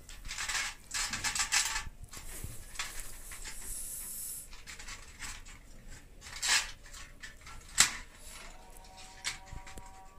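Scraping, rubbing and clicking of a heating rod being handled and fitted into an electric heater, with a sharp knock nearly eight seconds in.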